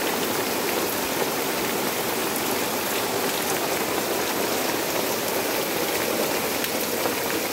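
Heavy rain falling steadily, an even rush of noise with no break.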